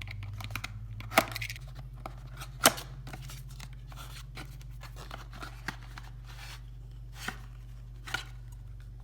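Packaging of a mini bike pump being opened and handled by hand: scattered clicks, rustles and sharp snaps, the loudest two a little over a second in and near three seconds in. A steady low hum runs underneath.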